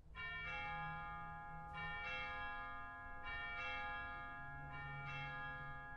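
Church bells ringing, a fresh stroke about every second and a half, each bell ringing on under the next.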